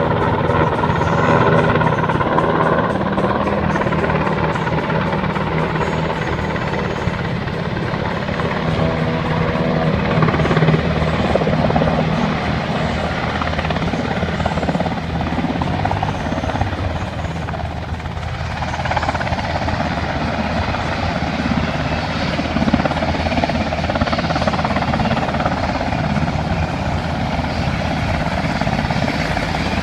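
Helicopter running close by, its rotor giving a loud steady beat that continues without a break.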